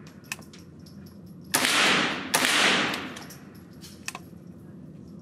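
Two .22 LR shots from a Smith & Wesson M&P 15-22 rifle, about a second and a half in and under a second apart, each trailing off in a long echo off the walls of an indoor range. A few faint sharp clicks fall between them.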